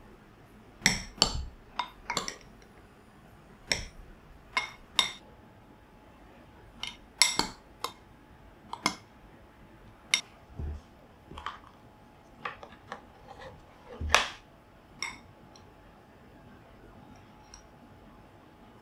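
Metal spoon clinking and scraping against a ceramic bowl while stirring margarine into warm rice, in irregular sharp taps that stop a few seconds before the end.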